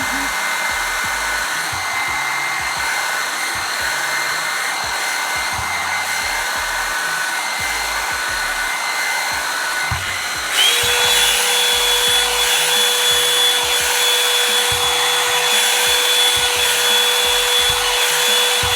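Revlon One-Step hair dryer brush blowing steadily, a constant rush of air with a steady motor whine. About ten seconds in it becomes a little louder and its whine changes to a new, steady pitch.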